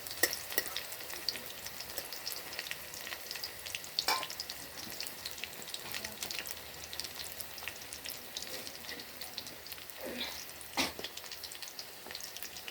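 Coriander-leaf and gram-flour fritters deep-frying in hot oil in a small kadai: a steady sizzle full of small popping crackles. There are a few sharper clicks, about four seconds in and again near the end.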